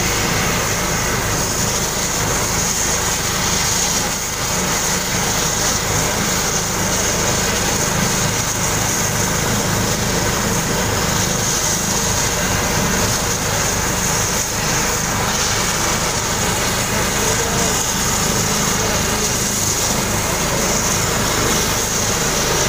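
Helicopter running on the ground, steady and unchanging: a high, constant turbine whine over a low steady hum from the engines and rotor.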